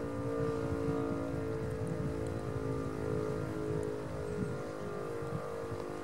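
VEM DS977 electric motor siren sounding a steady tone made of several pitches, with wind rumbling on the microphone.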